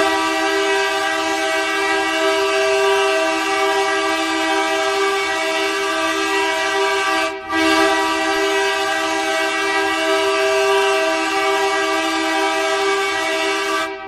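Hockey goal horn of the Edmonton Roadrunners sounding a loud, steady low chord in two long blasts, broken by a short gap about halfway through.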